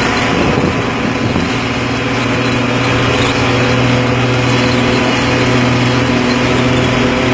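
Bus diesel engine running steadily through a loud aftermarket racing exhaust with a raspy, noisy note. Its steady low drone firms up about a second and a half in.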